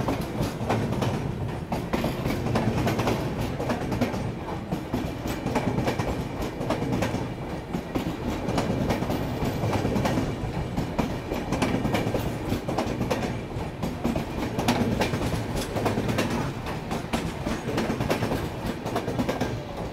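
Archana Express passenger train passing on the adjacent track, its coach wheels clattering steadily over the rail joints with a continuous rolling rumble.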